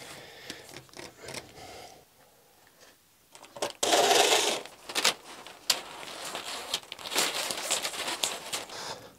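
Plastic electrical conduit with cable inside being handled and pulled through a gap into a small stone room: scattered clicks, knocks and rustling, with a louder rasping scrape about four seconds in.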